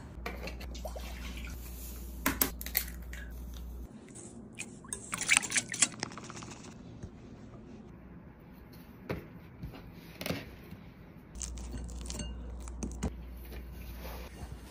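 Sticky cinnamon-roll dough squelching as it is squeezed and pulled by hand in a glass bowl, with scattered light knocks against the bowl. A low hum runs underneath for the first few seconds and again near the end.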